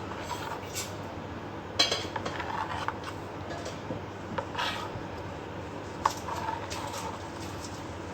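A utensil clinking against a metal cake tin three times, each clink followed by brief scraping, as a design is drawn in the cake batter.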